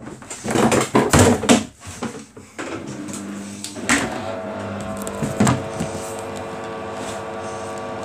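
Samsung front-loading washing machine starting its quick wash cycle: a few loud knocks and clatter, then about two and a half seconds in a steady electrical hum sets in as the machine begins running, with a couple of faint clicks.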